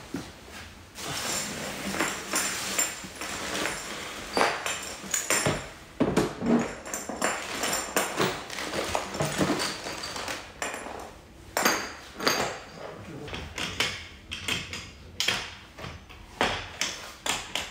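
Brass plumbing valves and fittings clinking and knocking against each other and the manifold as they are picked up, sorted and laid out, with plastic bags rustling in between.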